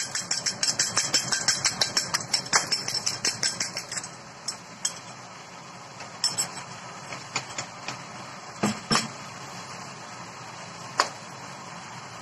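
A metal utensil beating egg in a porcelain bowl: a fast run of clinks against the bowl for about four seconds, then a few scattered taps and knocks over a steady hiss.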